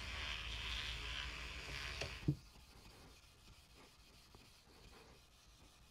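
Scrubbing on the bare metal of a motorcycle subframe, a steady rubbing hiss for about two seconds that stops with a short click, after which it is very quiet.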